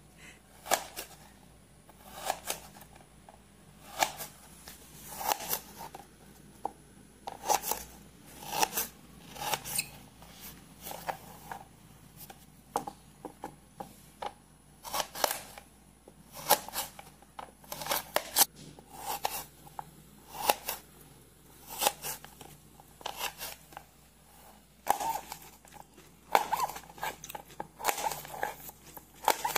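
Kitchen knife cutting carrots and green beans by hand, the blade clicking sharply on the cutting board in uneven strokes, about one or two a second.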